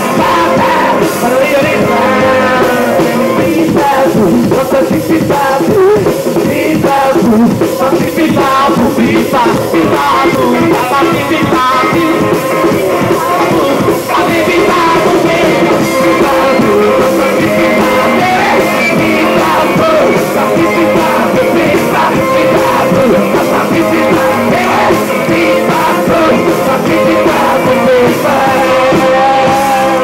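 Live rock band playing with electric guitar, electric bass and drums, heard from among the audience through a camcorder microphone.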